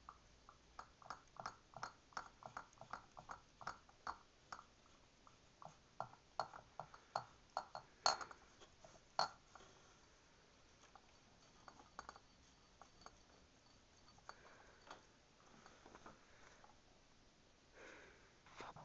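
A cat licking the top of an empty beer bottle: faint, quick licks about three or four a second, with two sharper, louder clicks about eight and nine seconds in, then sparser and quieter.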